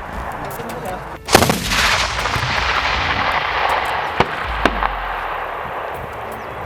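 ZU-23 twin 23 mm anti-aircraft autocannon firing. A loud blast comes about a second in, followed by a few seconds of dense, continuous gunfire noise with two sharp cracks near the middle.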